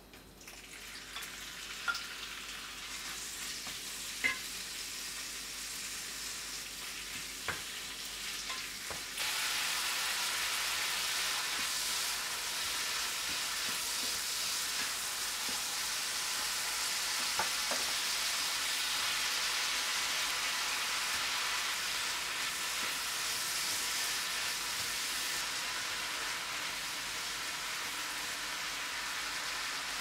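Squid stir-frying in a hot frying pan, a steady sizzle stirred with a wooden spoon, with a few light clicks in the first seconds. The sizzle jumps louder about nine seconds in and stays strong as cabbage and onion fry along with the squid.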